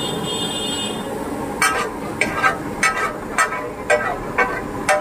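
Metal spatula clanking against a large iron griddle as pav bhaji is worked on it: sharp ringing strikes at an uneven pace of about two to three a second, starting about a third of the way in, over a steady background hiss.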